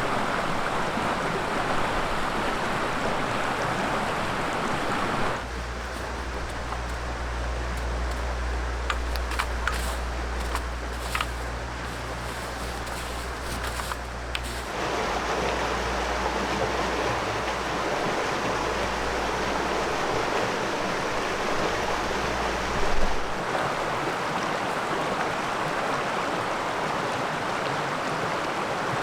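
River water flowing steadily, across shots joined by abrupt cuts. Through the middle the water is fainter, with a steady low hum underneath and a few small clicks.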